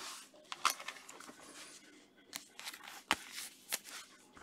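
Faint rustling and scattered sharp clicks of baseball cards and plastic card sleeves being handled in gloved hands.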